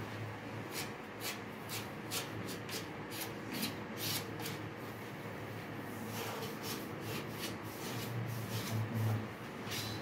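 A sponge and a scouring pad being rubbed over the surface of an unglazed ceramic wash basin, scrubbing in repeated short strokes, two or three a second, with a brief pause around the middle.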